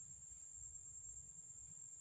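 Faint, steady high-pitched insect drone, with a low rumble underneath.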